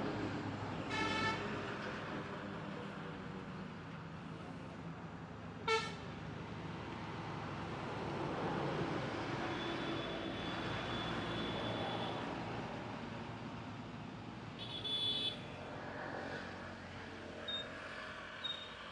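Road traffic idling and running steadily, with three short vehicle horn toots: one about a second in, a brief one near six seconds, and another near fifteen seconds.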